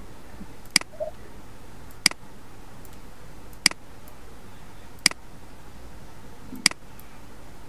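Computer mouse clicking five times, single sharp clicks about a second and a half apart, over a faint steady hum.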